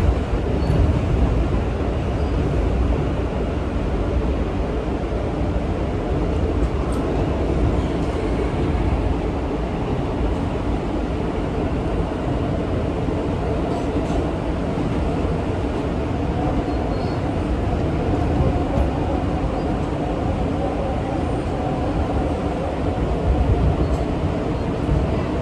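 R160A-1 subway car running along elevated track, heard from inside the car: a steady low rumble of wheels on rails, with a few faint clicks.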